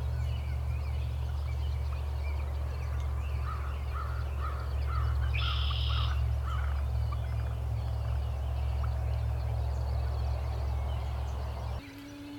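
Wild turkey calling: a series of about seven short, evenly spaced notes midway through, over a steady low rumble that cuts off suddenly near the end.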